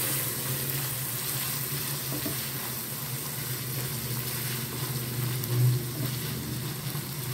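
Chicken mince frying in oil in a non-stick wok, sizzling steadily while a silicone spatula stirs and scrapes through it, with one brief thump a little past the middle.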